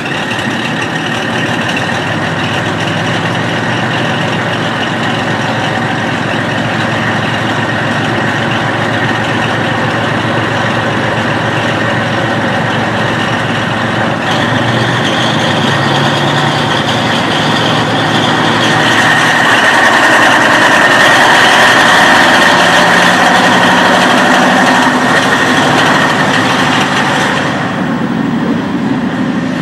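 Original-engine DMF15HSA diesel of a KiHa 40 railcar running under power, heard from inside the carriage. Its note steps up about halfway through and grows louder, then the upper part of the sound drops away suddenly near the end.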